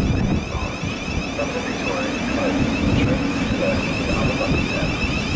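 Thameslink Class 700 electric multiple unit moving along the platform: a steady low rumble of wheels on rail under a high, even whine from the train's electric traction equipment.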